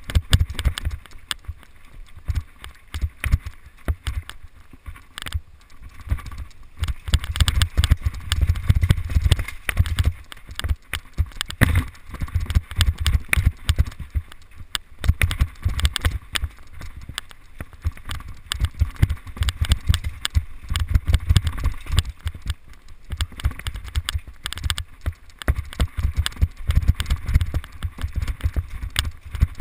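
Mountain bike riding down a rough dirt singletrack, heard from on board: a constant clatter of knocks and rattles from the bike jolting over roots and rocks, over deep rumbling thumps.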